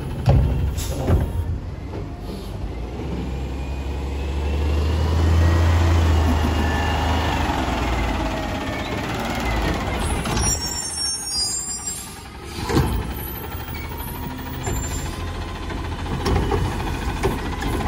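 Natural-gas Autocar ACX garbage truck running, its engine speeding up for a few seconds as the Curotto-Can cart arm's hydraulics work, with a gliding hydraulic whine. Brief high squeals and hissing from the air system just past halfway, and clunks of the carts and arm, the loudest about 13 seconds in.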